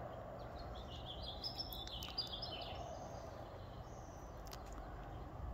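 A small bird gives a short, rapid phrase of high chirps starting about a second in and lasting about two seconds, over a steady low background hum.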